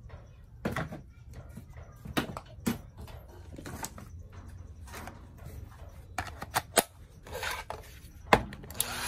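Scattered clicks and knocks of a cordless impact wrench and other hard plastic and metal tool parts being picked up and handled on a workbench, with a few sharper clacks near the end.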